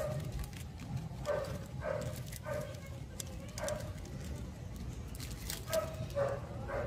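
An animal calling in about eight short, irregularly spaced calls, with faint light clicks between them.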